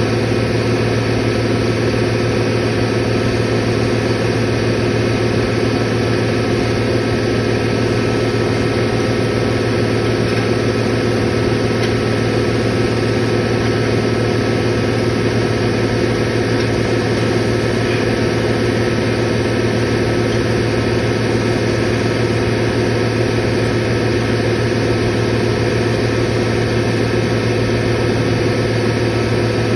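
Steady hum of running motor-driven machinery, with a strong low tone and several higher tones that do not change.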